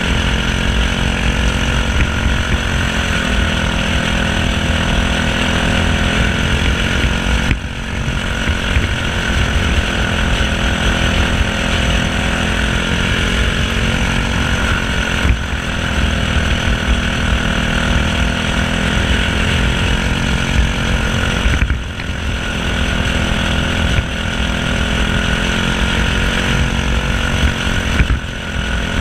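Single-cylinder four-stroke Briggs & Stratton LO206 kart engine running hard at speed. Its note dips briefly about every seven seconds, then climbs back.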